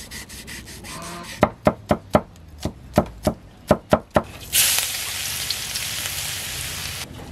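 A cleaver chopping garlic on a thick wooden chopping block, about ten sharp chops in three seconds. Then garlic starts sizzling in hot oil in a steel wok, suddenly and loudly about four and a half seconds in, and keeps sizzling steadily.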